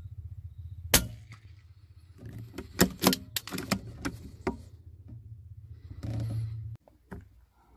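A single shot from a CZ 452 bolt-action .22LR rifle, a sharp crack, followed a second or so later by a run of quick metallic clicks as the bolt is worked to eject the case and chamber the next round. A steady low rumble sits underneath and stops abruptly near the end.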